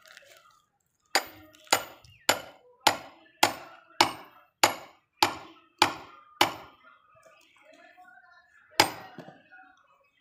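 Short-handled axe chopping firewood held upright on the ground: ten sharp wood-on-steel chops in a steady rhythm, about one every 0.6 s, then a pause of two seconds and one more chop.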